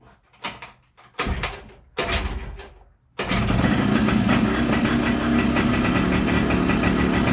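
Two-stroke scooter engine with a Malossi 172 kit being kick-started: two short kicks that turn it over without catching, then it fires about three seconds in and runs steadily.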